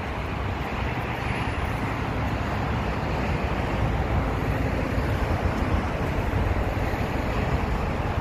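Wind buffeting a phone's microphone: a steady rushing noise with a gusty, fluttering low rumble.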